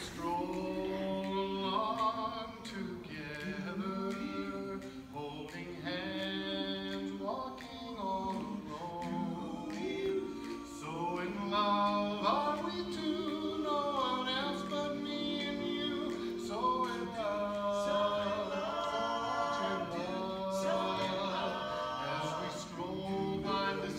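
Barbershop quartet of four men singing a cappella, the voices moving together in four-part chords, some held for several seconds.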